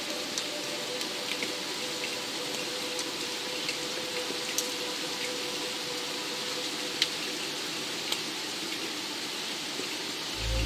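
Steady rain hiss with scattered single drops ticking and dripping at uneven intervals, over a faint held tone. A deep low hum comes in at the very end.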